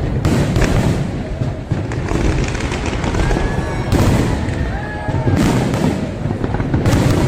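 Fireworks display: shells bursting in a series of loud booms and bangs, with a few bunched at the start, one near the middle and more near the end, over a continuous low rumble.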